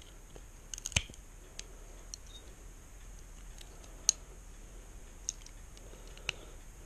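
Scattered sharp clicks and snaps of needle-nose pliers gripping and peeling the thin sterling silver shell off a weighted candlestick's filler, the loudest about a second in and another about four seconds in.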